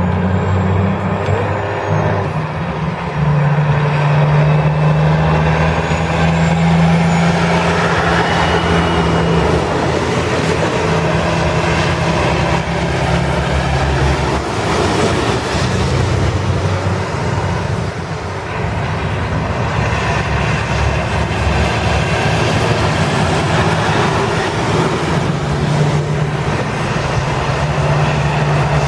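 Diesel engines of tractor-trailer trucks pulling past at low speed one after another, a steady drone mixed with tyre noise on wet pavement.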